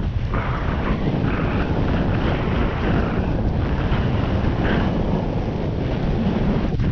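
Heavy, steady wind buffeting on the microphone: a dense rushing noise, heaviest in the low end, with no pauses.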